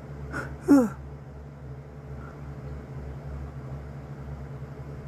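A single short vocal sound, falling in pitch, less than a second in, with a soft click just before it, over a steady low hum.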